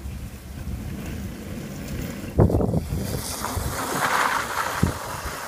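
Lightning McQueen Power Wheels electric ride-on car driving past over a dirt and bark-mulch track, its motor and plastic wheels rolling, with a knock about halfway through. Wind rumbles on the microphone.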